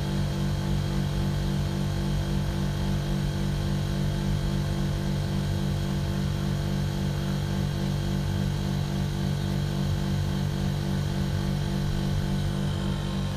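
TCL ductless split air conditioner's outdoor compressor running during its defrost cycle: a steady hum with several low tones that doesn't change.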